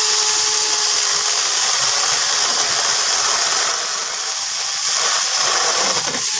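Small 12V battery-powered chainsaw with a 6-inch bar running under load, its chain cutting through a dry tree branch about 2 inches thick: a steady, hissy whir that eases slightly partway through.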